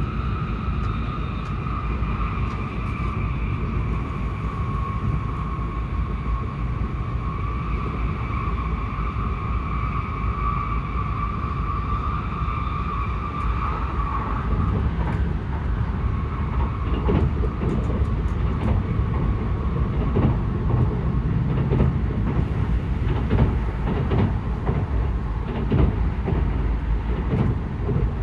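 Interior running noise of an N700S Shinkansen train: a steady low rumble with a high whine over it. The whine fades out about halfway through. After that the rumble gets rougher and louder, with irregular knocks from the wheels on the track.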